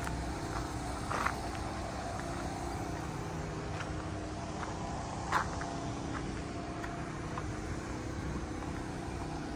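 Steady background hum of car engines and traffic, with a couple of brief sharp clicks, the loudest about five seconds in.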